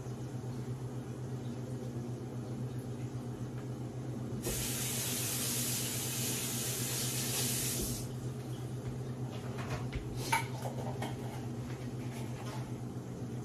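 A steady low hum, with a rush of hissing noise for about three and a half seconds starting about four seconds in and cutting off abruptly, then a few light clicks.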